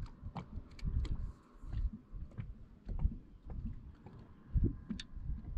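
Small fishing boat rocking on a lake: water lapping and slapping irregularly against the hull, with scattered light knocks and clicks, a sharper one about five seconds in.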